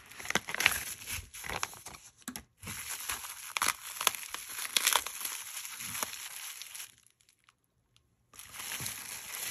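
Plastic mailer pouch and bubble wrap crinkling and rustling as they are pulled open by hand, with a brief break about two seconds in and a pause of over a second near the end.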